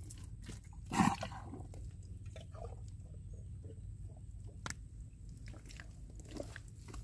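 Thick wet mangrove mud squelching and sucking as an arm is worked deep into a crab burrow: a louder slurp about a second in, then small wet smacks and a sharp click near the middle.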